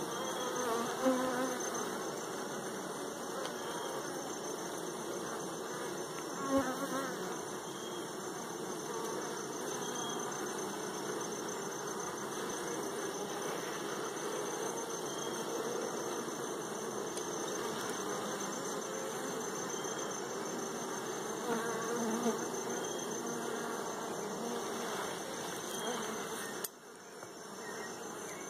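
Honeybee colony buzzing steadily around an opened hive as its frames are worked, with a steady high whine behind and a few brief knocks. The buzz drops sharply near the end.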